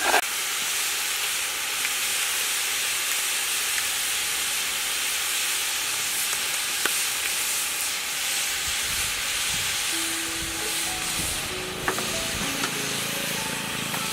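Steady sizzling hiss of food frying in a pan, with a few light clicks. Soft musical notes come in about ten seconds in.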